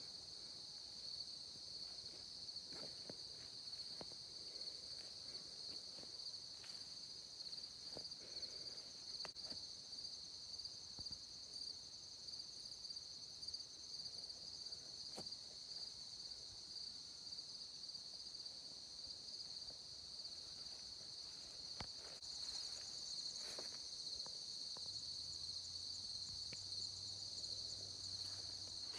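A steady, high-pitched chorus of crickets trilling, growing a little louder about three quarters of the way through, with a few faint knocks.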